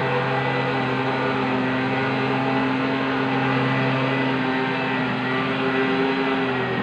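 Street noise dominated by a motor vehicle engine running at steady speed, a constant low hum with overtones. The lowest part of the hum fades briefly about two-thirds of the way through, then returns.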